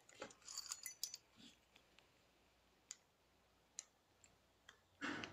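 Near silence broken by small, sharp clicks: a handful in the first second, then single clicks about once a second, like fumbling with something in the dark. A soft rustle starts near the end.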